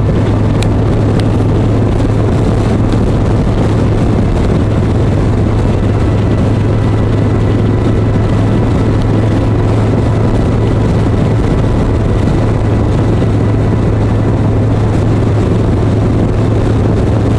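Harley-Davidson V-twin motorcycle cruising at a steady speed, its engine holding one even, low note under a constant rush of wind and road noise.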